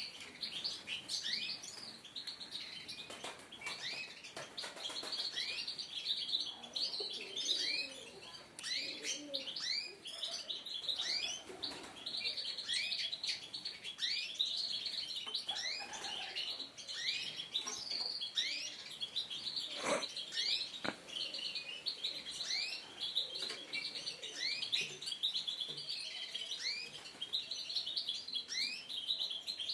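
Songbirds chirping and singing in a dense, continuous chorus of short high chirps, many of them quick rising notes repeated about once a second. A single sharp knock sounds about twenty seconds in.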